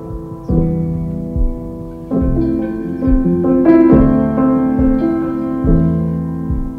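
Slow piano music, with a new chord struck every second or so and left to ring.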